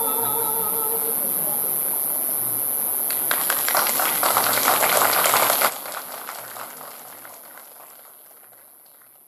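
The last handbell notes die away. A few seconds in, audience applause starts over a steady high hiss, then cuts off suddenly and fades out.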